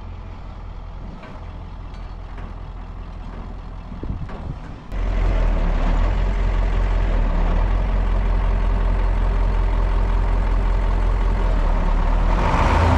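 A truck engine driving a truck-mounted hydraulic crane, pulling on a heavy load. It runs low at first, then jumps suddenly to a much louder, steady run about five seconds in, which holds to the end.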